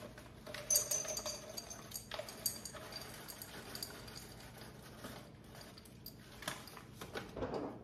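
Candy-coated chocolates and snack-mix pieces poured from a bag into a glass jar, clicking and rattling against the glass in scattered bits.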